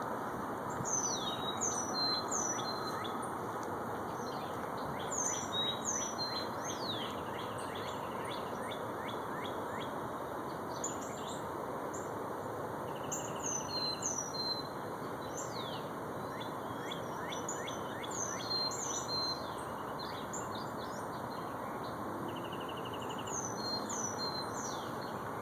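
Wild birds chirping and singing: clusters of quick, high, down-slurred chirps every few seconds, with short whistled notes and, twice, a brief buzzy trill. Under them runs a steady background noise.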